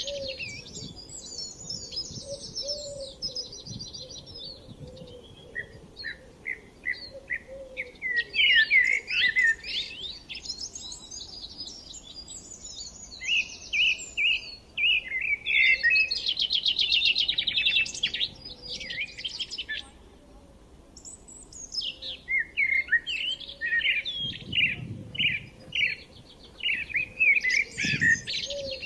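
Several songbirds singing and chirping, in repeated phrases of quick chirps and rapid trills, with short pauses between bouts.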